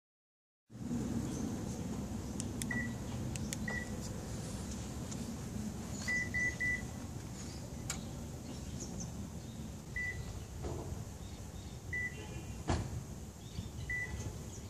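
Short electronic beeps at a single pitch, mostly one at a time and once three in quick succession, with a few sharp clicks in between, from an aftermarket remote-start car alarm system being operated.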